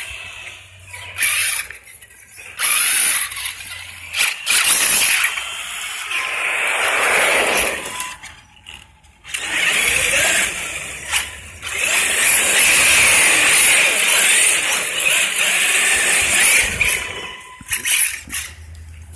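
Brushless electric motors of radio-controlled bash cars revving in repeated bursts, with a whine that rises and falls as the throttle is worked, and tires spinning for grip on wet pavement.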